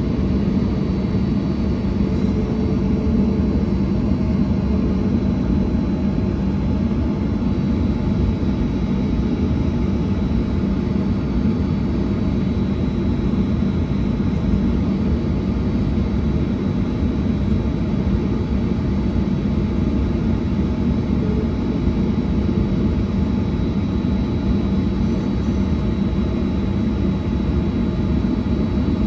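Airliner's jet engines running at taxi idle, heard from inside the cabin: a steady low rumble with a faint, constant high whine.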